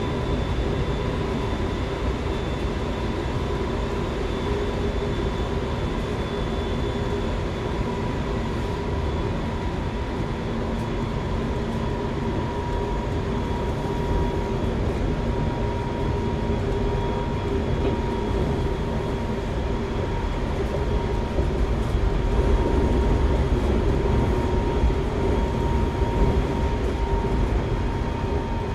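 Semboku Rapid Railway 5000 series electric train (Hitachi GTO-VVVF) running at speed, heard from inside the car: a steady rumble of wheels on rail with a whine held at one pitch. It grows a little louder about three-quarters of the way through.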